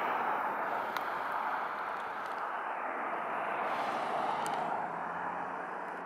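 Road traffic going by: a steady rush of tyre and engine noise that swells as vehicles pass, loudest about four seconds in.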